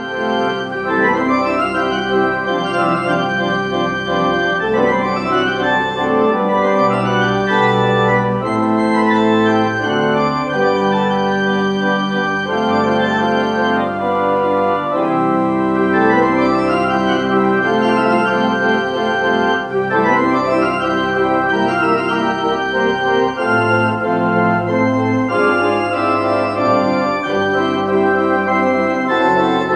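Church organ playing the postlude: full, sustained chords that change every second or so over a moving bass line.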